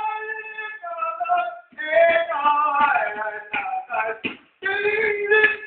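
A voice singing a melody with long held notes, breaking off briefly twice.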